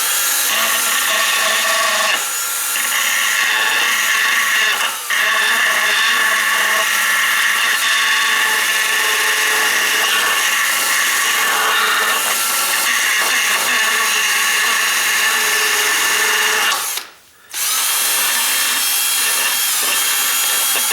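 Electric drill running at a steady speed in one long run of about 17 seconds, stopping briefly and starting again for a few more seconds, while working on a crank-out window's sash.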